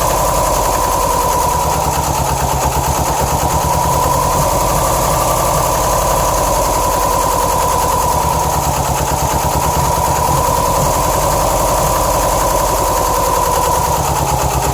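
2007 Subaru Impreza WRX STI's turbocharged 2.5-litre flat-four idling roughly, with an even pulsing and a steady whine above it. The owner blames a passenger-side AVCS unit whose shredded check-screw screen was probably blocking the solenoid and starving cylinders 1 and 3 of oil.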